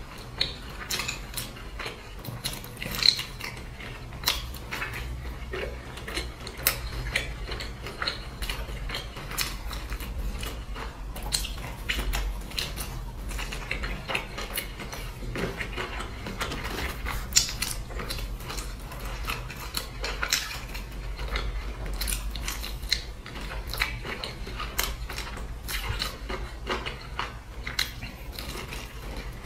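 Close-up eating sounds: crisp bites into and chewing of pan-fried flatbread, with many irregular sharp clicks and a spoon clinking against a glass bowl of dipping sauce.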